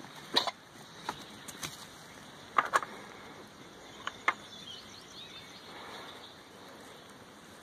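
Goats moving about and feeding in a pen: a scatter of sharp clicks and knocks, some in quick pairs, over a quiet outdoor background with faint bird chirps.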